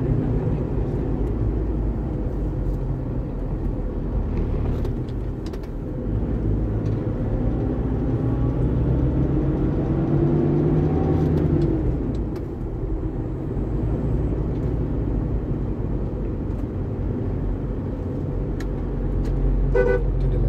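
Car cabin noise while driving: steady engine and tyre rumble. About a third of the way in, the engine pitch rises over a few seconds, then falls away. A short tone sounds near the end.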